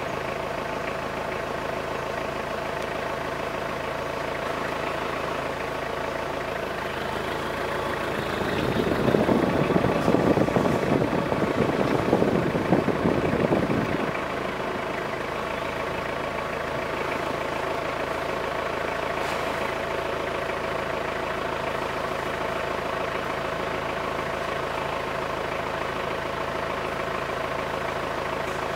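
Vehicle engine idling steadily. For about five seconds, roughly a third of the way in, a louder rough noise rises over the hum, then the steady idle carries on.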